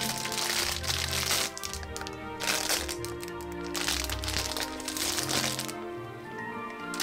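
Thin clear plastic bag crinkling and crackling in several spells as hands open it and pull it back, over background music.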